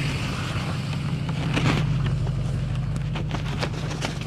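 2500HD pickup truck engine idling with a steady low hum, with scattered light clicks and knocks over it.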